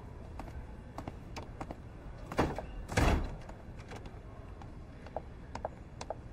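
A door opening and being pushed shut with a thud about three seconds in, amid footsteps on a hard floor. Near the end come steady heeled footsteps walking away.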